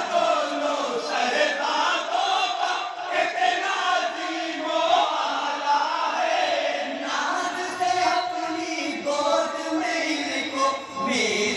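A group of men chanting an Islamic devotional kalam together in chorus, over crowd noise.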